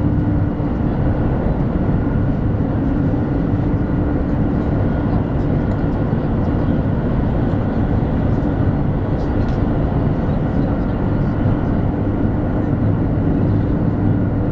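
Steady running noise inside the passenger cabin of a 200 Series Shinkansen travelling at speed, with a steady low hum under it.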